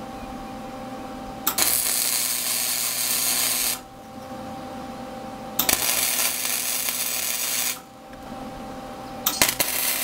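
Flux-core wire-feed welder arc crackling in three welds of about two seconds each on steel grating, with a steady hum between the welds.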